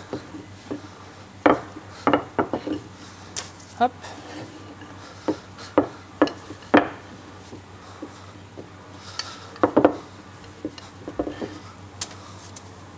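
Scattered, irregular knocks and taps of a wooden rolling pin and dough on a wooden worktop and baking tray as dough balls are rolled flat into baps.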